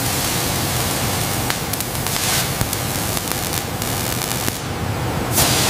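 Robotic welding: a steady, loud hiss and crackle over a low hum, with a few sharp clicks, swelling briefly near the end.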